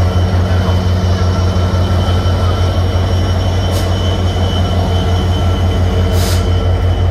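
A stationary train's engine running with a steady low hum and a few faint steady higher tones. Two short hisses cut in, about four and six seconds in, the second longer.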